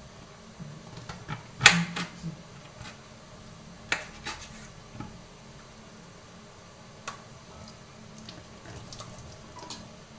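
Knife cutting a cabbage on a chopping board: scattered sharp knocks and clicks at an uneven pace, the loudest about two seconds in.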